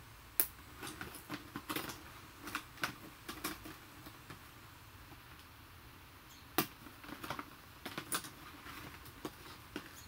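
Doll packaging being pried apart by hand: irregular sharp clicks, snaps and crinkles of plastic and card, in a busy run over the first few seconds and another burst about two-thirds of the way through.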